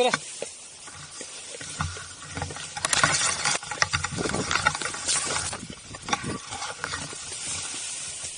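A hiker's footsteps crunching and rustling on a dry hill trail, in irregular clusters about once a second, loudest about three seconds in.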